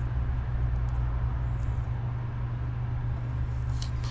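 A steady low hum runs throughout, with faint crinkling of masking tape being handled near the end.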